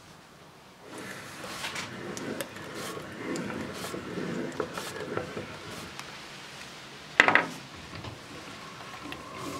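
Hand-cranked cast-metal meat grinder, Soviet-made, mincing sun-dried figs: a steady grinding and scraping with small clicks as the crank turns. It starts about a second in, and there is a single sharp knock near the end.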